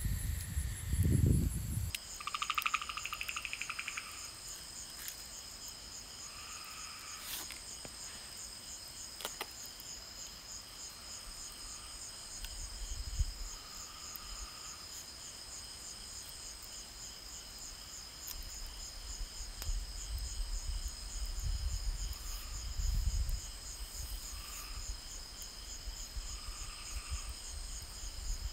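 Crickets chirping in a fast, steady, high trill, with shorter bouts of lower chirping now and then. Low rumbles come and go about halfway through and near the end.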